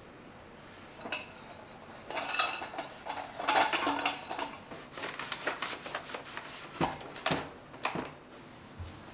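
Ceramic dishes and small kitchen containers clinking and knocking on a counter as they are lifted, set down and wiped around with a cloth. It is a string of light clinks and taps, busiest in the first half, with bits of cloth rubbing between them.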